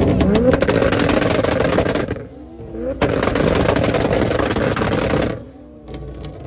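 Turbocharged 2JZ straight-six of a Mk4 Toyota Supra on rolling anti-lag: rapid, machine-gun-like popping and banging from the exhaust as the car crawls forward. It comes in two long bursts with about a second's lull between them, and stops near the end.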